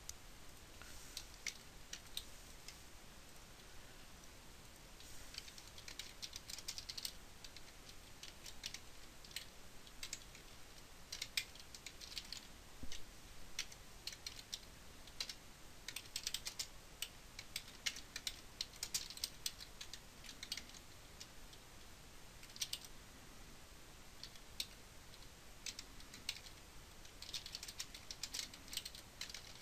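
Typing on a computer keyboard: faint key clicks in irregular bursts, with short pauses between runs of keystrokes.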